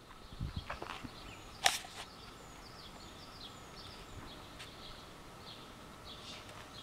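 Songbirds chirping outdoors, a string of short, high, falling notes repeating every half second or so. A single sharp click comes about a second and a half in, with a few low thuds just before it.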